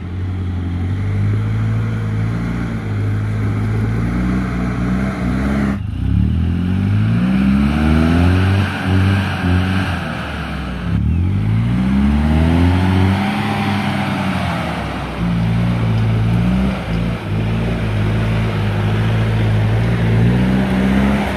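Troller T4 4x4's engine revving up and down repeatedly as it crawls up a steep, rutted dirt trail, its pitch rising and falling with each push on the throttle.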